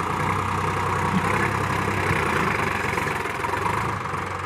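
Sonalika DI tractor's diesel engine working hard under heavy load, hauling a fully loaded trailer through soft dirt. It runs loud and steady, easing off slightly near the end.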